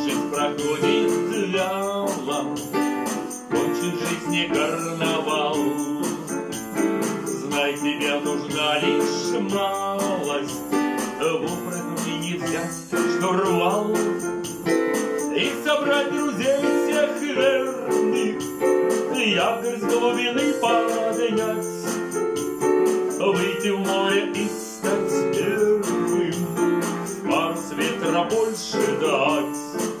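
Casio digital piano playing an instrumental passage of a song with a full accompaniment and no singing.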